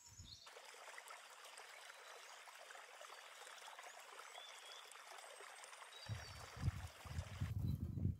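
Steady rushing hiss like a running stream, with a few faint bird chirps over it; low rumbling thumps come in about six seconds in.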